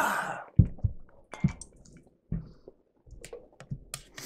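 A breathy "ahh" exhale after a swallow of soda, then close-up wet mouth sounds of swallowing and chewing, with a few short low thuds.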